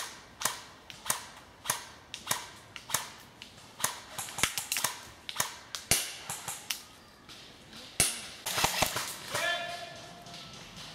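Airsoft guns firing a run of single shots, sharp cracks at about two a second, each followed by a short echo; the shots thin out and stop about nine seconds in.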